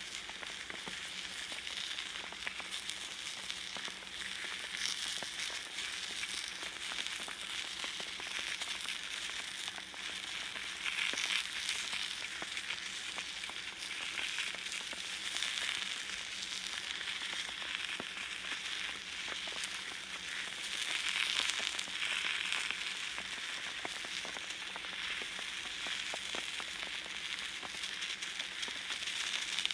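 Salted mackerel fillet sizzling on a hot iron griddle plate, a steady crackling of spitting fat that swells louder a couple of times.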